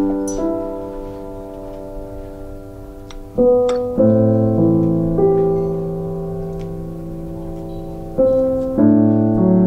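Background piano music: slow, sustained chords, each struck and left to fade, with new chords coming in twice in quick pairs, once past the middle and again near the end.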